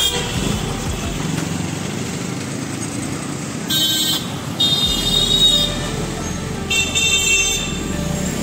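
Urban street traffic with motorcycles and cars running past, and a vehicle horn honking three times in the middle, the second honk the longest.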